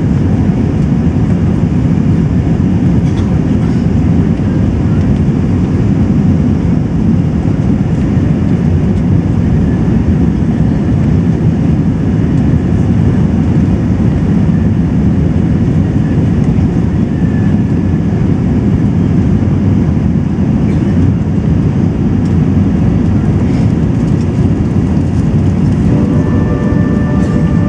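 Steady, loud cabin noise inside an Airbus A380-861 climbing after takeoff: the deep rumble of its Engine Alliance GP7200 engines at climb power, mixed with air rushing past the fuselage, heard from a window seat just behind the wing.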